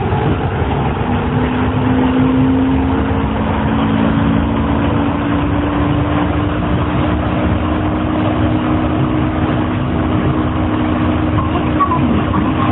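Running sound of an Astram Line 6000-series rubber-tyred train on board: the shunt-wound chopper-controlled traction motors give a low steady whine that climbs slightly in pitch, over a dense rumble. The motor sound is abnormal, the sign of a car with a motor noise fault.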